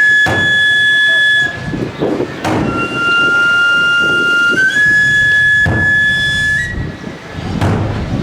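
Chirimía (wooden double-reed shawm) playing held, reedy notes that step upward in pitch in two phrases, over a drum struck four times at roughly two-second intervals.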